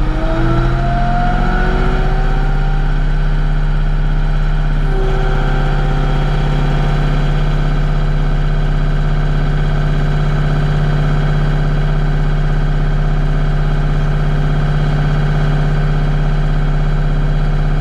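Bobcat CT5555 compact tractor's diesel engine revving up from idle in the first couple of seconds, stepping up again about five seconds in, then running steady at high revs while the front loader strains to lift about 1,850 lb. The loader is short of its rated lift capacity, and the dealer suspects a bad hydraulic pump.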